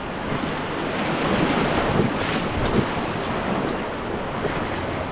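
Rushing white water of river rapids around the raft, a dense steady roar that builds over the first couple of seconds, with wind buffeting the microphone.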